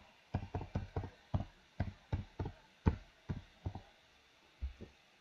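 Computer keyboard keystrokes typing a word: about fifteen short taps over four seconds, then a pause and two more near the end.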